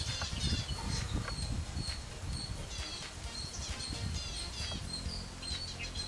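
Garden birds chirping and calling, with short downward-gliding notes and a sharp note repeated over and over, typical of an ashy prinia calling loudly in the background. A low rumble runs underneath.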